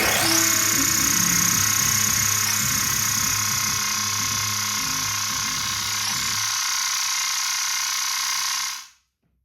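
Electronic noise music: a steady, bright hissing drone with a few low held tones beneath it. It sweeps up at the start and cuts off suddenly near the end.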